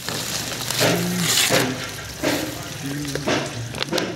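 Liquid pouring and splashing out of a tipped plastic drum in uneven gushes. The liquid is used X-ray film solution being drained off the settled sludge.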